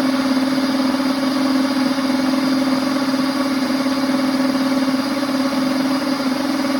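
Princess House Vida Sana blender motor running steadily at a constant high speed, a strong even hum over a whirring hiss, blending milk with chocolate tablets.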